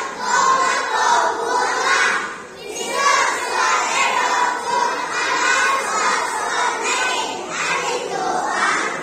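A group of young children reciting a Bible passage (Proverbs 11:1–5) together in unison, in Mizo, loud and half-shouted, with short breaks between phrases about two and a half and seven and a half seconds in.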